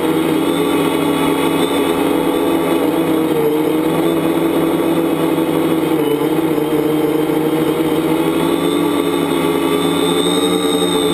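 Tricopter's electric motors and propellers humming steadily in flight, the pitch wavering slightly up and down as the throttle shifts.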